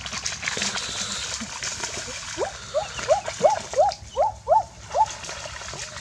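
Splashing in shallow muddy water, then a dog whining: a run of about nine short whines, each rising then falling, about three a second, from about two seconds in until about five.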